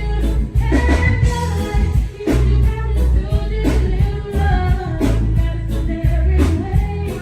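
A live reggae performance: a woman singing over a band with a heavy, steady bass line.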